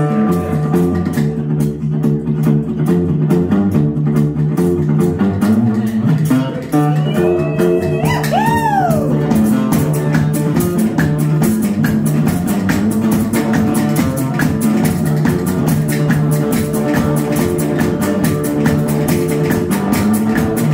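Live band playing an instrumental passage: a metal-bodied resonator guitar and other guitars picked and strummed over a low bass line. A short tone bends up and down about eight seconds in.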